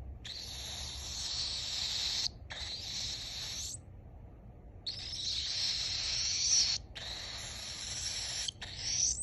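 Pet bird making long hissing, breathy sounds in five bursts of one to two seconds each, separated by short pauses.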